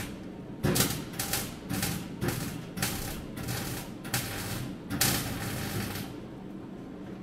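Welding in a run of short bursts, a dozen or so stitches each well under half a second, laying weld on the bracing through the car's floor pan. It stops about six seconds in, leaving a low steady hum.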